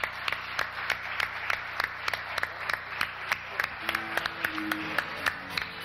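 Audience applauding. About four seconds in, an acoustic guitar starts playing notes under the clapping.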